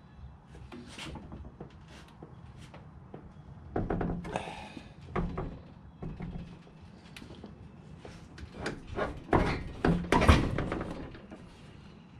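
Scattered clunks and knocks, heaviest about four seconds in and loudest around ten seconds in, from an engine on a hoist bumping against the car as it is worked down into the engine bay.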